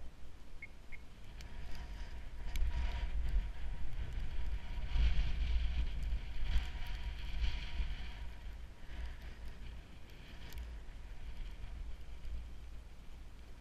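Wind buffeting the helmet-mounted microphone in gusts, strongest about midway through, over the steady low sound of snowmobiles idling.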